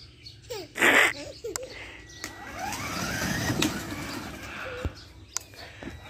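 Electric ride-on toy car driving on a dirt yard: its small drive motors whine with a rising pitch as it picks up speed, over the rumble of the plastic wheels on grit. Two short, loud bursts of noise come about a second in.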